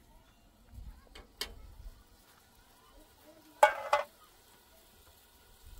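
Metal cookware and utensils clinking: a few light knocks, then a short, loud metallic clatter a little past halfway.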